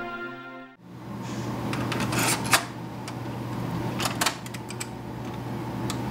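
Music cuts off under a second in. Then a cassette tape is handled and pushed into a stereo's cassette deck: a few sharp plastic clicks and clunks of the cassette and the deck's door over a low steady hum.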